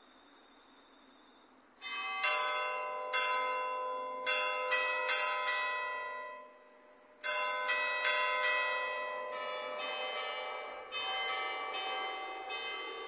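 Five church bells in a tower, struck electromechanically, playing a hymn melody in short phrases. The strikes come in quick runs of differing pitches, each bell ringing on between strikes. They begin about two seconds in and pause briefly a little after six seconds.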